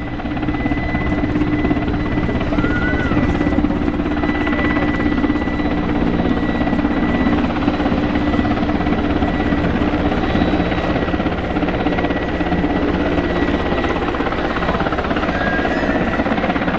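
Mi-14PŁ naval helicopter hovering low, its twin turboshaft engines and rotors running steadily: a loud, even rotor noise with a high turbine whine over it.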